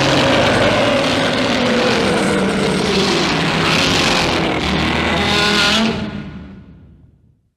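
Kaiju monster roar sound effect of the Godzilla or Gabara kind: one long, harsh roar with pitch sliding up and down. It holds loud for about six seconds, then fades out.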